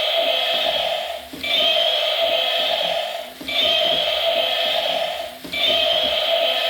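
Electronic sound effect from a battery-powered toy vehicle's small speaker, the same held-tone pattern looping about every two seconds with a short break between repeats.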